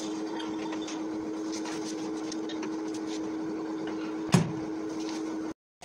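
Steady electrical hum of a countertop convection microwave oven running. About four seconds in, its door shuts with one sharp knock, and shortly before the end all sound cuts off abruptly.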